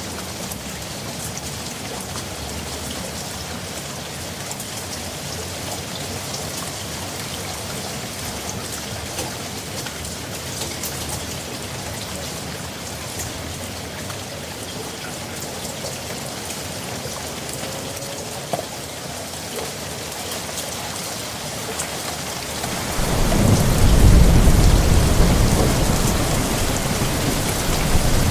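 Steady rain falling, with fine drop patter. Near the end a low roll of thunder swells up and slowly fades under the rain.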